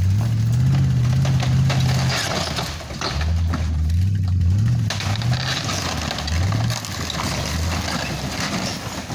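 Pickup truck engine revving up and down under load while pulling on the shack, with a steady crackling and rattling noise over it.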